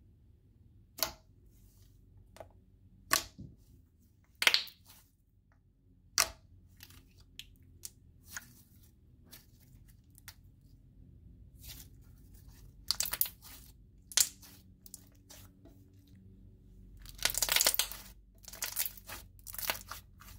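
Thick jelly slime being pressed, squeezed and stretched by hand, giving sharp pops and clicks a second or two apart, then a denser run of crackling toward the end.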